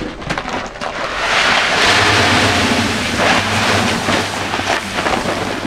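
Whole barley grain pouring from a paper sack into an empty plastic trash can: a steady rushing hiss of kernels hitting the bin, starting about a second in after a few short rustles.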